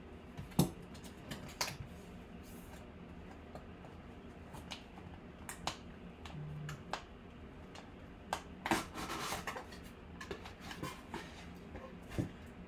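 Cardboard boxes being handled and opened by hand: scattered taps and clicks of cardboard, with a rustling, scraping stretch about nine seconds in as the inner box slides out.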